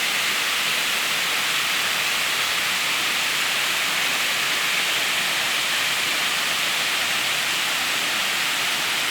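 Small waterfall running in the rainy season, a steady even rush of falling water with a hissy, high-pitched character.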